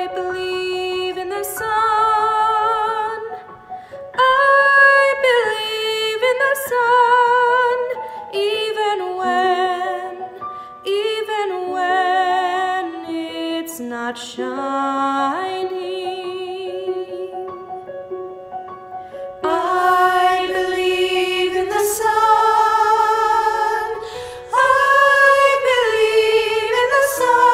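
A woman singing a slow solo with vibrato; about twenty seconds in, a choir of several voices joins her and the sound grows fuller.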